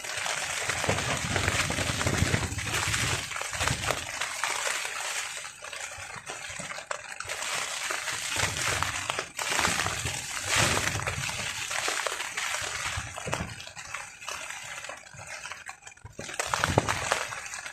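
Steady rain on a tarp, with wind gusting in irregular low surges.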